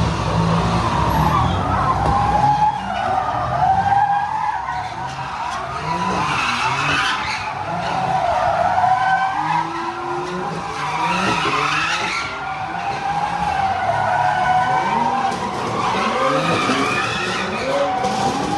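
A car doing donuts: tyres squealing without a break, the squeal's pitch wavering up and down, over an engine revving up and down.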